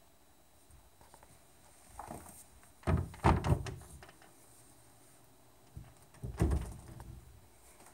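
Glass-panelled display cabinet door being handled, opening or closing against its frame: a light knock about two seconds in, a cluster of loud thuds around three seconds in, and another loud thud about six and a half seconds in.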